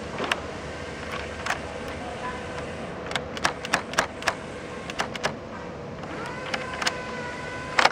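Short sharp clicks and clacks, several in quick succession midway, from a French door's lever handle and lock cylinder being turned and tried, over a faint steady hum.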